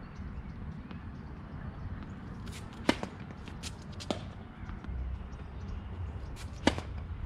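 A tennis ball bounced a few times on a hard court about three to four seconds in, then the sharp pop of a racket striking the ball on a serve near the end, all over a low steady rumble.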